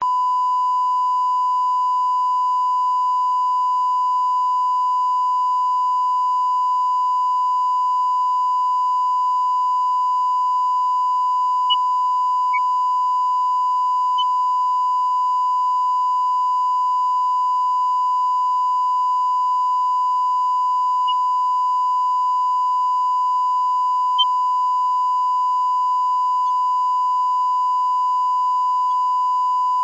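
Steady, unbroken broadcast line-up test tone, the reference tone that runs with colour bars at the head of a video tape, with a couple of faint ticks about twelve and twenty-four seconds in.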